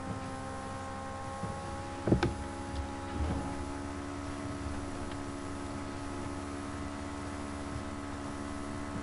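Low, steady electrical hum with several steady tones from the lecture-recording setup. A brief knock comes about two seconds in, and a fainter rustle about a second later.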